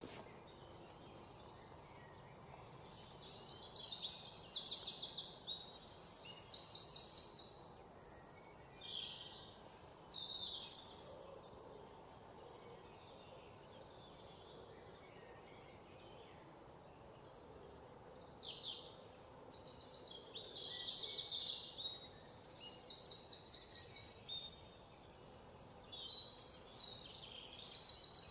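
Birds chirping and trilling, high and rapid, in spells with short lulls, over a faint background hiss.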